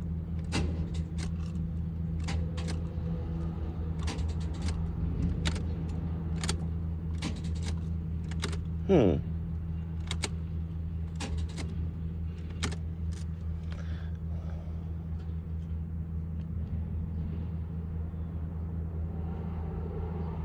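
Steady low hum of an idling car engine, with scattered sharp clicks like keys and switches, and one short falling squeak about nine seconds in.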